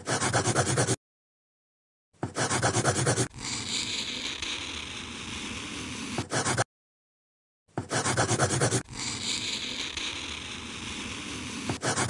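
Pencil-on-paper scribbling sound effect, looped: a stretch of quick scratchy strokes, then a steadier scrape. It cuts to dead silence for about a second, twice.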